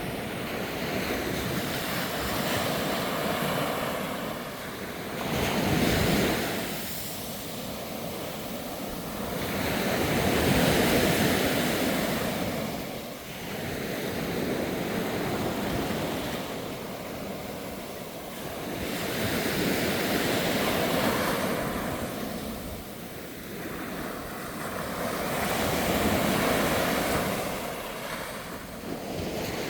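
Sea waves breaking and washing up a sandy beach, the surf swelling and falling back in slow surges every several seconds.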